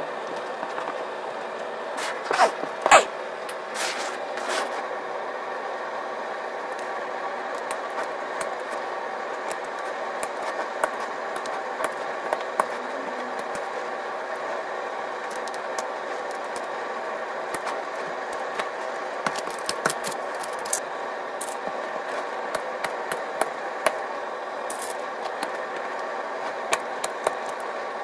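Scissors snipping and trimming hook-and-loop fabric around a round sanding block, heard as scattered sharp clicks and snips, loudest a couple of seconds in and again in a burst past the middle. Under it runs a steady background hum.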